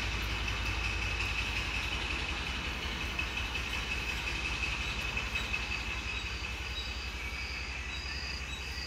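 Outdoor ambience of a steady insect drone over a low rumble. Near the end a cricket begins chirping in a regular pulse, about twice a second.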